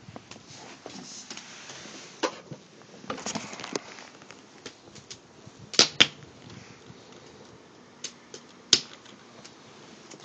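Wood fire of scrap building lumber crackling, with irregular sharp pops over a low hiss; the loudest are a close pair about six seconds in and one more near nine seconds.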